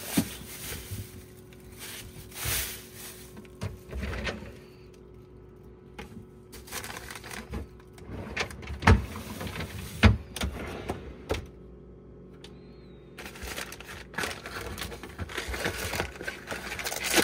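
Plastic produce bag rustling and the clicks and knocks of refrigerator drawers and shelves as food is moved about, with two sharp knocks near the middle and more rustling of packaging near the end.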